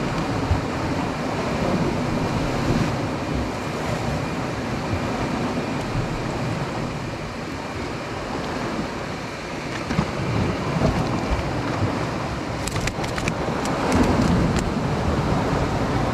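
Sea waves washing against rocks, with wind buffeting the microphone. A quick run of small clicks about thirteen seconds in.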